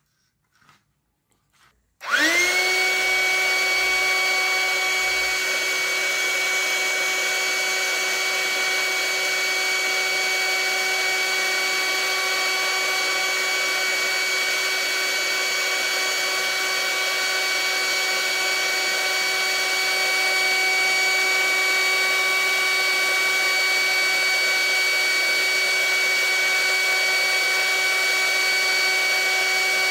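A small 12-volt electric air pump, converted to run off a 3S LiPo battery, switched on about two seconds in: its motor spins up quickly, then runs steadily with a high whine.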